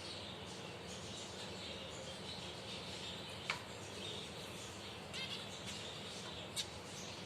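Finches chirping: a few scattered short, sharp chirps, the loudest about halfway through and a couple more near the end, over a steady background hiss.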